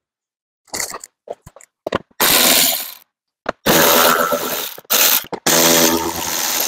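Cordless electric ratchet whirring in three bursts of a second or so each as it backs out the bolts of a truck cab's roof grab handle, after a few short handling clicks.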